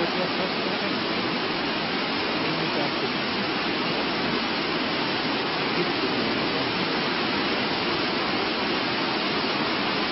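Waterfall rushing: a steady, even roar of falling water with no change in level.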